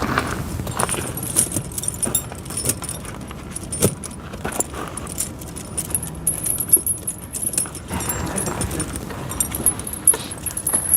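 Steel tractor tyre chain links clinking and jangling as the chain is handled, in irregular clicks and jingles.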